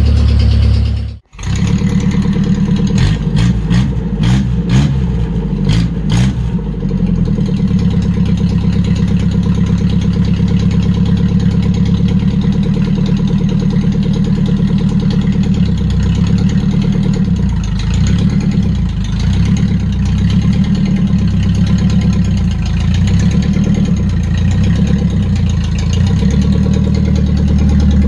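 MGB's 1.8-litre B-series four-cylinder engine running steadily. The sound cuts out briefly about a second in, and a few sharp knocks come over the engine between about 3 and 6 seconds in.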